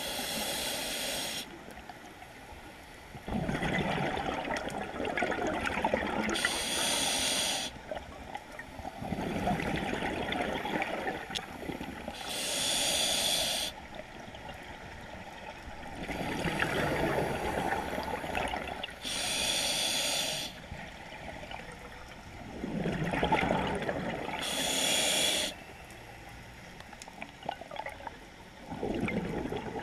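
Scuba diver breathing through a regulator, five slow breaths about six seconds apart: each a hissing inhale of a second or so, followed by a longer gush of exhaled bubbles.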